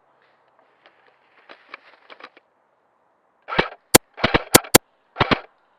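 Airsoft rifle fire: three short bursts mixed with sharp single cracks, starting about three and a half seconds in, after a few faint clicks.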